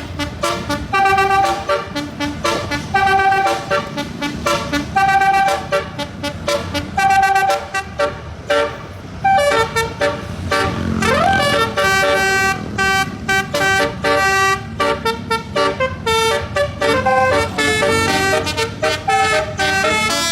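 Basuri musical bus horn playing a tune: a quick run of short, loud horn notes at several pitches, with a brief pause about nine seconds in and a rising pitch slide about two seconds later.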